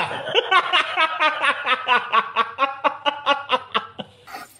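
A person laughing in a long run of quick chuckles, about five a second, stopping about four seconds in.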